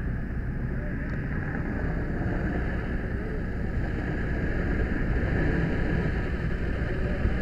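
Fire hose nozzle spraying a steady stream of water, over the steady low rumble of the fire engine pumping the line. It grows a little louder about four seconds in.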